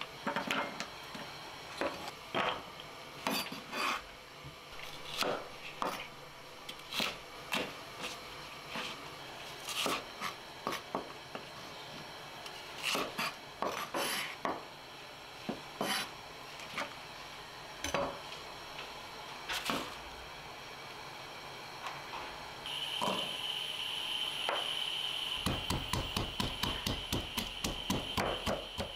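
Kitchen knife cutting Korean zucchini and green onion on a wooden cutting board: single sharp knocks at an uneven pace. Near the end a stone pestle pounds garlic cloves in a stone mortar in quick repeated thumps, about four a second.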